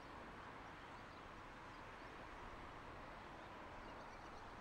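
Faint, steady outdoor background hiss with no distinct event standing out; the distant railcar is not clearly heard.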